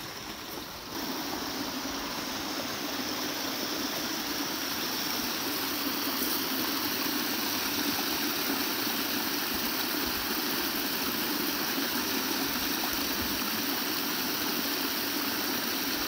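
Small cascades of a mountain headwater stream spilling over rocks into pools: a steady rush and splash of water that grows louder about a second in.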